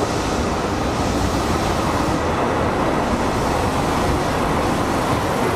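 Electric trains standing and moving at a station platform: a steady rumble and hiss, with no single event standing out.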